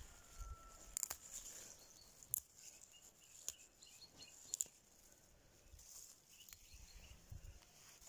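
Faint rustling and a handful of sharp snaps as flat-leaf parsley stems are picked by hand.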